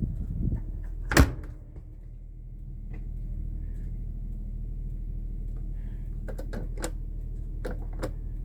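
Sharp clicks of switches or control buttons being pressed, one loud click about a second in and several lighter ones near the end, over a steady low hum.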